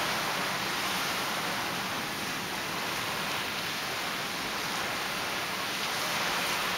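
Surf breaking on the reef: a steady rushing wash of waves that swells a little near the end.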